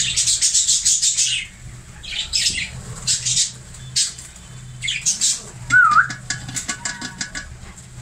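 Budgerigars chattering in a breeding colony: rapid scratchy chirps that come in bursts, with a short whistled note about six seconds in and a run of light clicks near the end.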